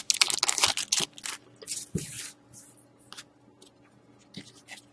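Foil trading-card pack wrappers crinkling and tearing open, with a quick run of rustles in the first second and another burst about two seconds in, then faint rustles and clicks of cards being handled.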